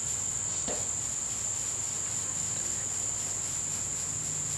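Crickets trilling in a steady, high-pitched drone.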